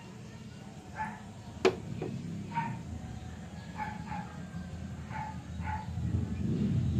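A dog barking, a series of short barks about one a second, with a single sharp click about a second and a half in and a low steady hum underneath.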